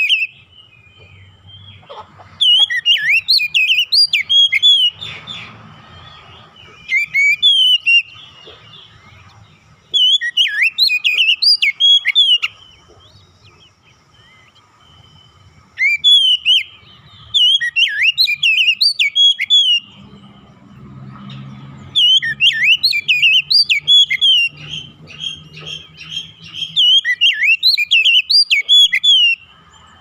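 Oriental magpie-robin singing in repeated phrases of rapid, sweeping whistled notes, each phrase one to three seconds long with short pauses between. The song is filled with imitated calls of other birds.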